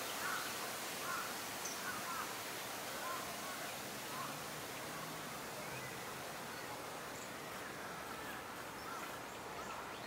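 Outdoor ambience: a steady hiss with faint, short bird calls scattered through it.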